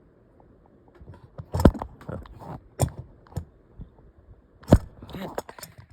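Knocks, clicks and rubbing from the recording phone being handled or knocked about. The sharpest knocks come about one and a half, three and nearly five seconds in.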